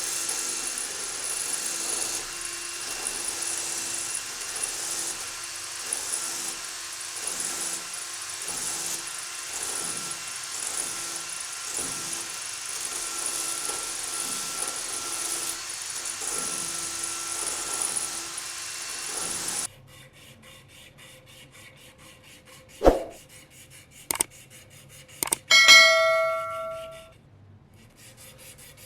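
A small power tool runs steadily on the knife's metal for about twenty seconds, then cuts off suddenly. A few sharp knocks follow, then a clear metallic ring that dies away over about a second.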